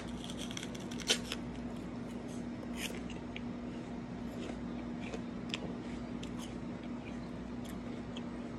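A bite into a crisp Pixie Crunch apple, with a sharp crunch about a second in, followed by scattered crunching as the bite is chewed. A steady low hum runs underneath.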